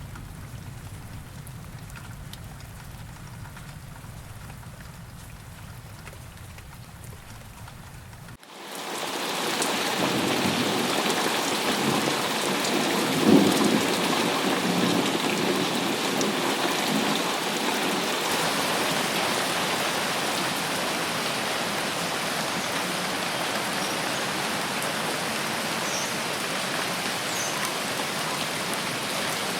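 Rain with thunder. It starts as a quieter, low rumble, then about eight seconds in cuts abruptly to steady, heavy rain hiss, with one short, louder moment a few seconds after the change.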